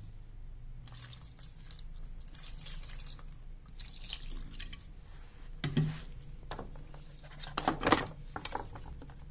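Isopropyl alcohol sloshing and dripping in a shallow plastic tray as a laptop logic board is moved and flipped in the bath. A few sharp knocks of the board against the plastic come later, the loudest near the end.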